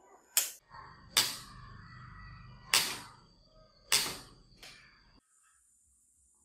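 Five sharp clicks and knocks from handling a homemade spring-loaded welding electrode holder as its handle is fitted, with a low hum under the middle of them. The sound cuts off abruptly a little after five seconds in.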